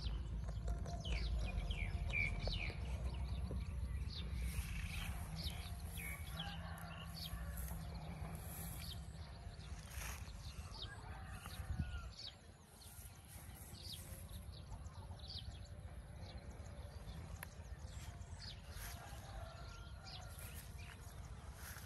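Outdoor field ambience: wind buffeting the microphone as a low rumble that eases about twelve seconds in, with scattered short, high chirps and rustles over it.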